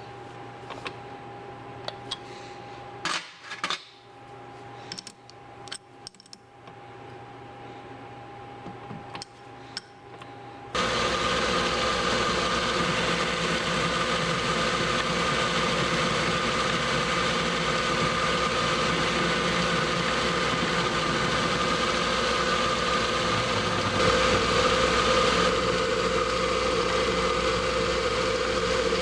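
Metal clinks and clicks of tools and a steel workpiece being handled at a metal lathe, then the lathe is switched on about a third of the way in and runs steadily with a constant hum and whine, its tone shifting a little near the end.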